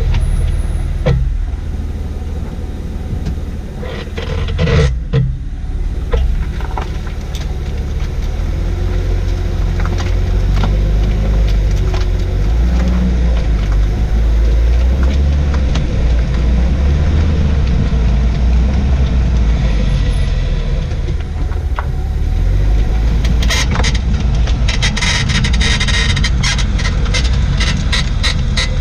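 Jaguar XJ6 X350 moving over the road with a steady low rumble, its rear suspension creaking and squeaking, with a dense run of rapid creaks in the last few seconds. The owner cannot tell whether a newly replaced rear air strut or a failing bushing is to blame.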